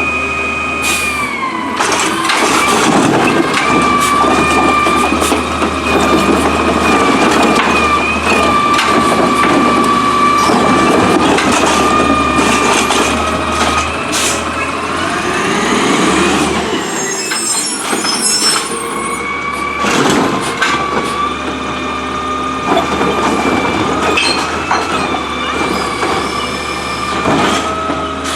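Autocar ACX Heil Rapid Rail side-loader garbage truck running with a steady high whine, the whine the uploader notes these trucks make at idle. The whine breaks off briefly about a second and a half in and again for several seconds in the middle, while short clanks and hisses sound over the engine.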